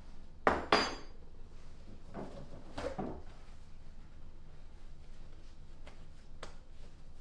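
Two sharp clatters with a short metallic ring at a stainless-steel kitchen sink, just after the tap has been running, then the rustle of a paper towel as hands are dried and a couple of light clicks.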